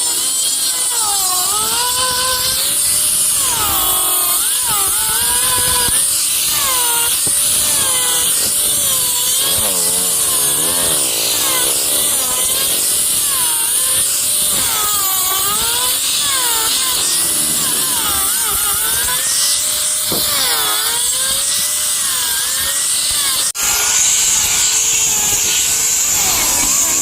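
Handheld electric power tool cutting into wood, running continuously with a high hiss. Its motor pitch dips again and again as it bites into the wood, then recovers. A brief break about three-quarters of the way through.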